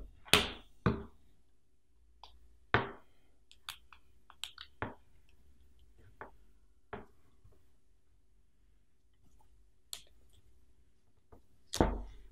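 Irregular clicks, ticks and short scrapes of hands working a self-regulating trace heating cable: a Stanley knife cutting its blue inner jacket and the jacket being pulled off the end. The strongest clicks come just after the start and near the end.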